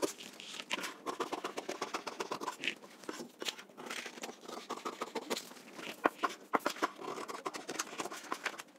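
Large tailor's scissors cutting through brown pattern paper: a quick, irregular run of snips with paper crunching and scraping.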